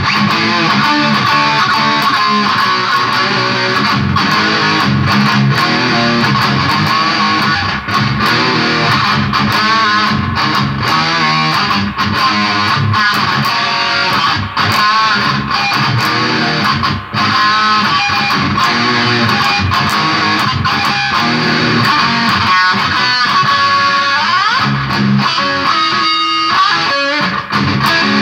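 Stratocaster-style electric guitar played through an amplifier: a continuous run of notes and chords, with held notes wavering in pitch from vibrato and bends, most clearly in the second half.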